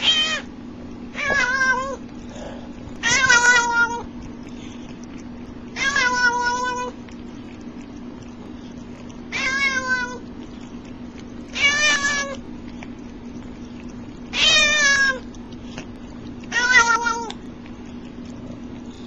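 Domestic cat meowing, eight separate calls spaced a few seconds apart, each bending in pitch. A steady low hum runs underneath.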